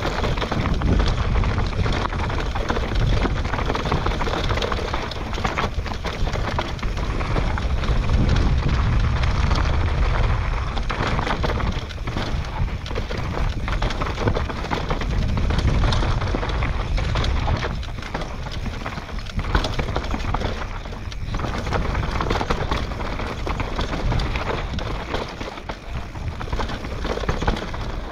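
Mountain bike descending a rough downhill trail at speed: wind buffeting the camera microphone, with tyres rolling over dirt and rock and the bike rattling over bumps in frequent sharp knocks.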